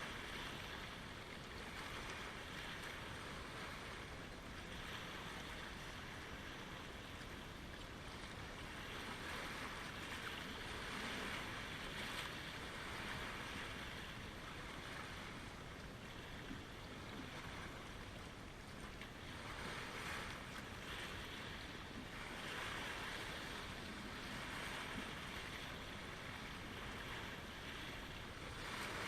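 Small lake waves washing against the shoreline: a steady wash of water noise that swells and eases every few seconds.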